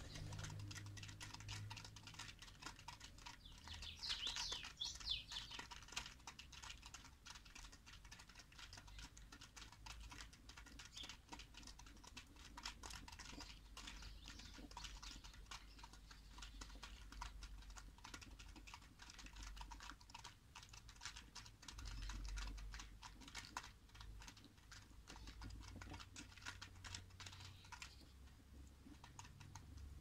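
Pigeons pecking grain from the plastic tray of a bottle feeder: a faint, steady patter of many quick beak clicks, with a brief louder sound about four seconds in.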